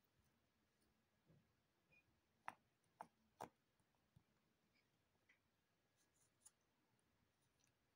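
Cardboard jigsaw puzzle pieces being handled and pressed into place on a board: three quick, faint, sharp clicks close together near the middle, then a few fainter ticks, against near silence.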